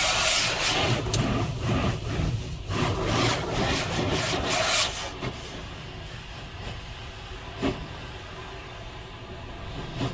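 Automatic car wash tunnel heard from inside the car: water spraying and streaming over the windshield and body as a loud, hissing rush for about five seconds. It then settles to a quieter, steady wash noise, with a single thump about three-quarters of the way through.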